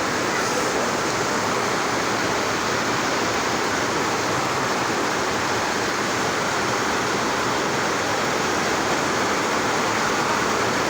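Heavy rain falling steadily, a dense, even hiss loud enough to drown out a voice.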